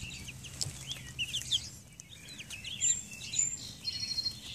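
Young chickens, about seven weeks old, peeping and cheeping: many short, high chirps overlapping one another.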